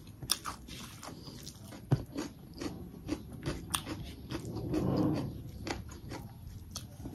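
Close-miked chewing and lip smacking of a person eating rice by hand, with short wet clicks and the soft sound of fingers mixing rice on a plate. There is a louder low swell about five seconds in.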